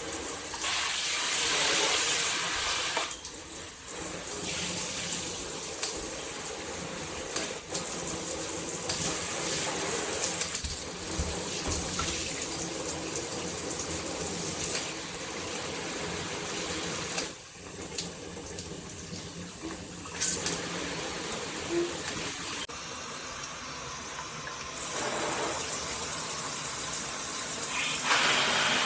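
Water spraying from a handheld shower head, a steady hiss that drops and rises in level several times.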